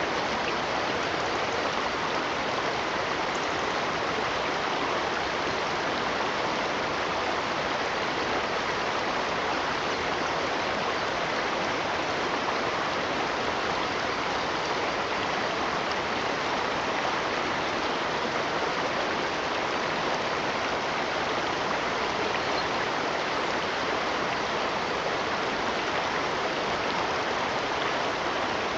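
Steady, unbroken rush of flowing stream water, even in level throughout.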